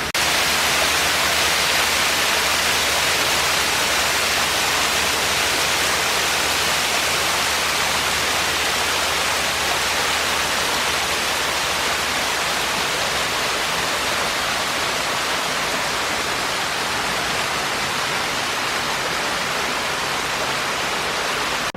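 Waterfall pouring in a steady, unbroken rush of water.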